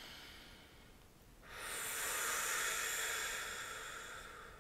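A woman breathing deeply: a soft in-breath, then from about a second and a half in a longer, louder out-breath that slowly fades.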